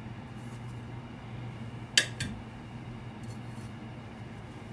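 Metal kitchen tongs clink sharply against metal about two seconds in, with a smaller click just after, while baked buns are being moved from a grill drawer onto an enamel plate. A steady low hum runs underneath.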